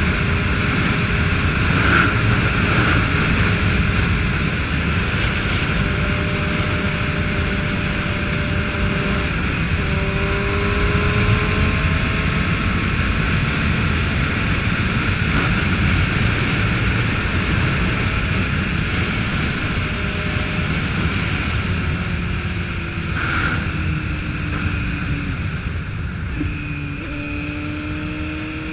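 Motorcycle riding at road speed: the engine note slowly rises and eases a few times as the throttle changes, under heavy wind rumble on the microphone.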